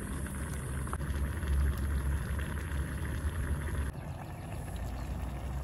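Pot of instant noodles simmering over a small wood fire, with a steady low wind rumble on the microphone.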